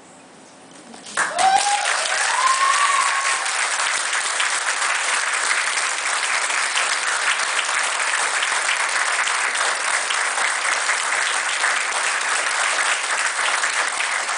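Wedding guests applauding a newly married couple: clapping bursts out about a second in and carries on steadily and loudly, with a couple of short rising cheers just after it starts.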